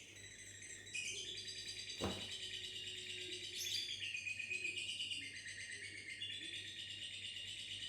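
Lovebird ngekek: a long, rapid, high-pitched trilling chatter that gets louder about a second in and runs on without a break. A single sharp knock sounds about two seconds in.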